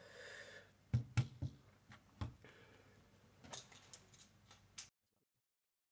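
Faint, scattered clicks and taps as a tiny Phillips precision screwdriver works the small screws of a plastic compact camera's battery cover, with a few dull handling bumps. The sound cuts off suddenly near the end.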